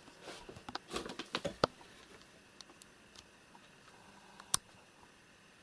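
Handling noise as the camera is moved: a quick run of rustles and clicks in the first couple of seconds, then a few faint ticks and one sharp click near the end.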